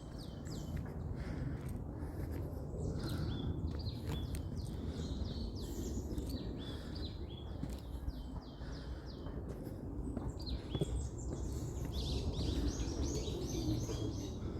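Small birds chirping: quick runs of short, high, downward-sliding notes, thickest near the end, over a steady low rumble of background noise.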